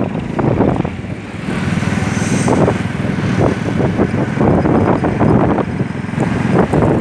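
Road noise from a moving vehicle on a city street: engine and traffic running underneath loud, gusty wind rushing over the microphone.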